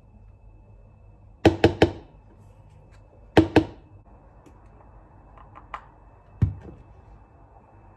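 Sharp knocks in quick clusters: three rapid knocks about a second and a half in, two more about two seconds later, a few faint ticks, then a single heavier knock with a dull thud.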